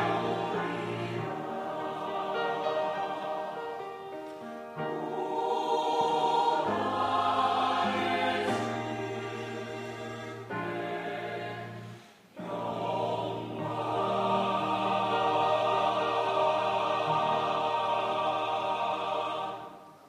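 Mixed church choir singing in sustained chords with accompaniment, with a short break about twelve seconds in, then a long held closing chord that fades away at the end.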